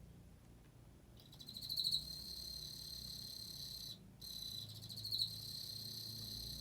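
Emma field cricket (Teleogryllus emma) singing: a clear, high, pulsed trill that starts about a second in, breaks off briefly in the middle and resumes, then stops at the end.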